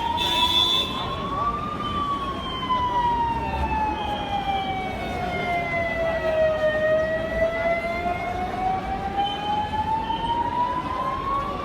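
Siren wailing in a slow sweep: its pitch rises for about two seconds, falls for about five seconds, then rises again for about five seconds, over a steady background rumble.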